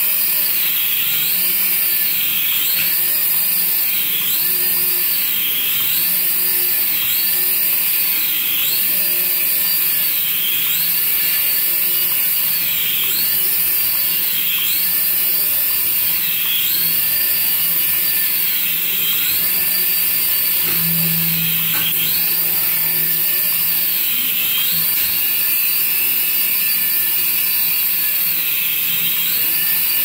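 Small electric toy RC helicopter's coaxial rotor motors whining steadily as it hovers, the pitch swelling up and down in a regular cycle about once a second.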